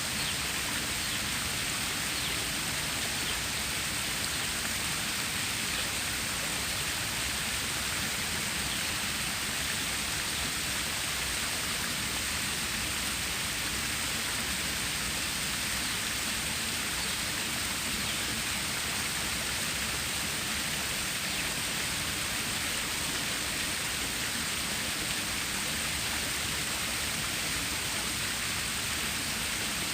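Stream water flowing steadily: an even, unbroken rushing noise with no pauses or separate events, strongest in the higher range.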